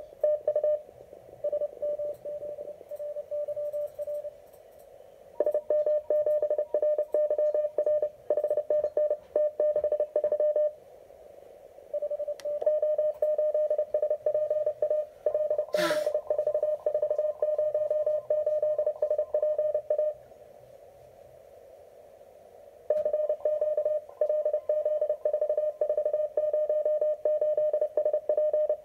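Morse code (CW) signal from an amateur station received on an RGO ONE HF transceiver on the 20 m band: a single steady tone near 600 Hz, rapidly keyed on and off in several runs with pauses between. A single sharp click about halfway through.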